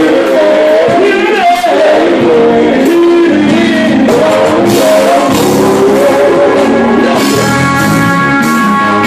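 Male gospel vocal group singing live through microphones, a lead voice over held backing harmonies, with band accompaniment including drums.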